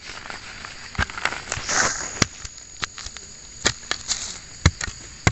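A digging tool chopping and striking into soil around a bamboo shoot: about ten sharp strikes at uneven intervals, with a scraping, rustling stretch about two seconds in. A faint steady high-pitched tone runs underneath.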